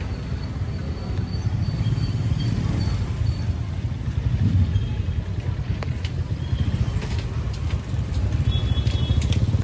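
Street ambience: a steady low rumble of road traffic, with a few faint clicks and short high tones near the end.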